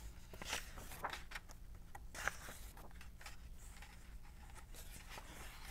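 Hardcover picture book being opened and its pages handled and turned: faint paper rustles and soft knocks of the cover, mostly in the first two seconds or so.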